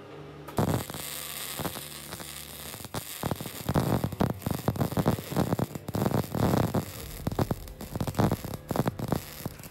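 Arc welding on steel plate: the arc strikes about half a second in and crackles and spits irregularly through a long bead, then cuts off at the end.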